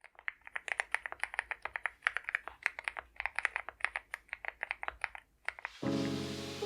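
Fast typing on an Akko MOD006 custom mechanical keyboard with lubed Akko CS Crystal Silver linear switches and PBT cherry-profile keycaps, a rapid run of keystrokes that stops about five and a half seconds in. Background music starts just after.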